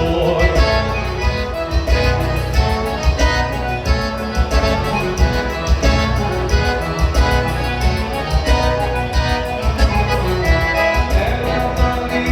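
Instrumental music with a steady beat and an accordion-like melodic lead, between sung verses of a song.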